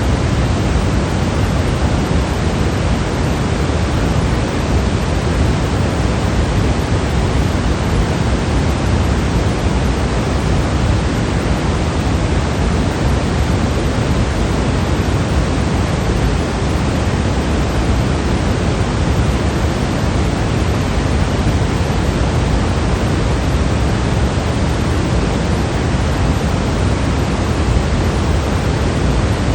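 Steady electronically generated sleep noise of the kind sold as white noise. It is an even, unbroken hiss, fuller in the low end than the high.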